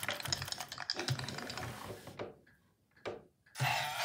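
Small Boxer toy robot rattling in quick dense clicks as it is shaken by hand for the fortune-teller game, then a single knock about three seconds in as it goes back onto the wooden table.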